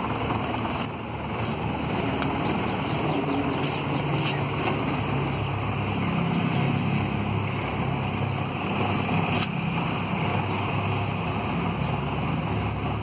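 Farm tractor's diesel engine running steadily while it moves with a heavy engine block slung from its rear.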